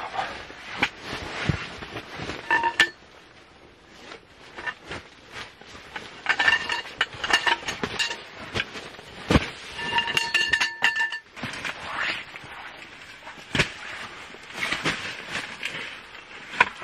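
Aluminium tubes of folding camp furniture being unfolded and handled: repeated clicks and clinks of metal on metal, with a few short ringing tones from the tubes.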